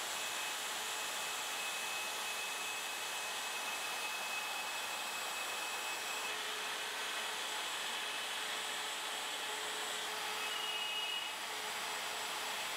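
Router with a quarter-inch spiral bit running steadily, cutting a shallow groove into melamine panels, with a faint high whine over an even whir.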